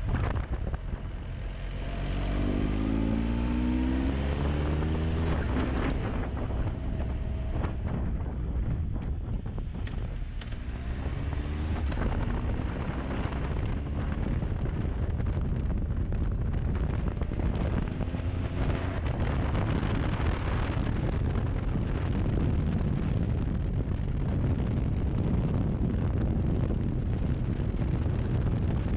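A 1200 cc motorcycle engine heard from the rider's seat, accelerating out of bends. Its note climbs a couple of seconds in, eases off around ten seconds, and climbs again, over a steady rush of wind on the microphone.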